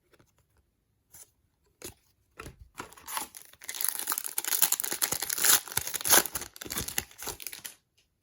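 A trading card pack's wrapper being torn open and crinkled by hand: a few light rustles, then about five seconds of dense crackling that stops shortly before the end.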